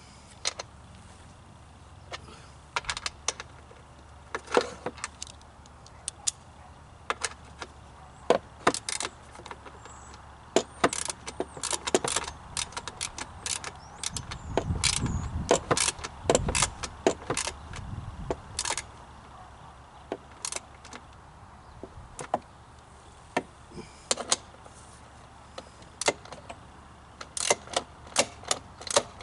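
Irregular sharp metallic clicks and clinks of hand tools and hardware being worked on a lawn mower, with a low rumble of the mower being handled about halfway through.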